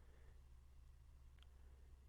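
Near silence: room tone with a faint steady low hum and one faint tick about one and a half seconds in.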